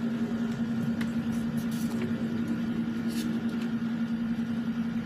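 Steady hum of a window-type air conditioner running, with soft rustling as the paper pages of an instruction manual are handled.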